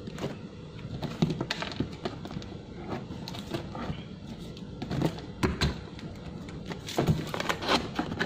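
Cardboard box holding a wok being handled: irregular knocks, thumps and scrapes of cardboard as the box is turned, set down and its top flap worked open.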